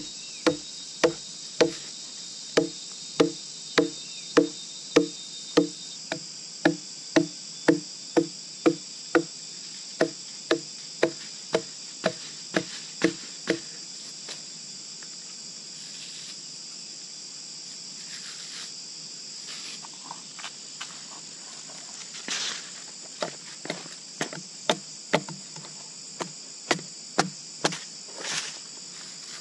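A wooden club beating the bark of a felled tree trunk, about two knocks a second, loosening the bark for peeling. About halfway the knocking stops and gives way to scattered cracking and tearing as the bark is pulled off the trunk. Insects trill steadily in the background.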